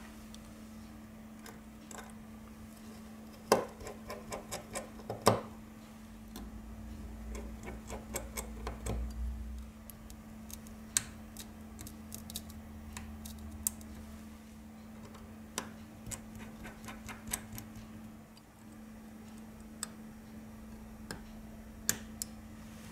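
Small, irregular clicks and taps of metal tweezers and fingers handling parts inside an iPhone 6, against its metal housing, board shields and connectors; two sharper knocks a few seconds in, then scattered light ticks. A steady low hum runs underneath.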